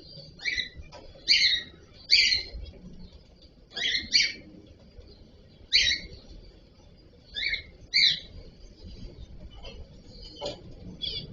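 Cockatiels giving short, sharp chirps: about eight loud ones at irregular intervals, then a few fainter ones near the end.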